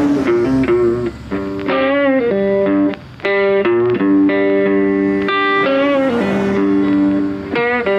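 Instrumental background music: a guitar playing a melody of long held notes.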